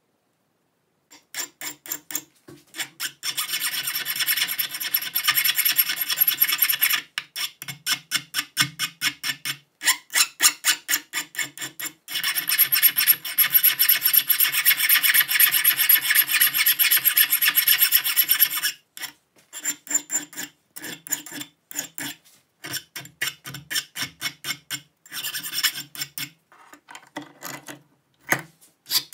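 Flat hand file rasping over a stainless steel nut clamped in a bench vise, in quick back-and-forth strokes. The filing starts about a second in, runs in long unbroken spells with short pauses, and turns into shorter, broken bursts of strokes near the end.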